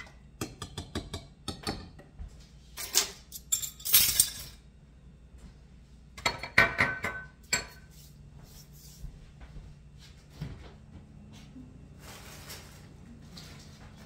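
A utensil stirring marinade in a ceramic mixing bowl, making a quick run of light clinks against the bowl. This is followed by louder clattering and rustling handling noise a few seconds in and again around the middle.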